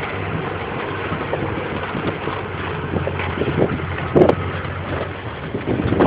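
A car driving on a dirt road: steady engine and road noise with wind buffeting the microphone, and a couple of short knocks about three and a half and four seconds in.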